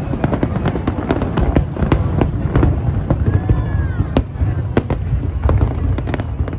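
Aerial fireworks display: a rapid, dense run of sharp cracks and bangs from bursting shells over a continuous low rumble of booms.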